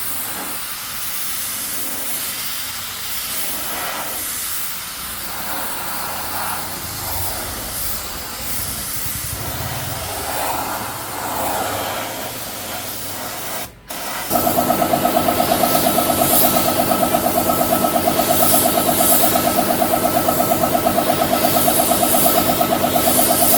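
A steady spraying hiss, then after a short break about 14 seconds in, a louder motor running steadily with a fast, even pulse.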